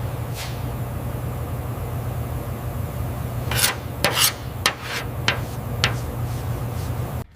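A steady low motor hum under a rough rubbing, rasping noise, with about six sharp clicks or taps in the second half; it all cuts off suddenly near the end.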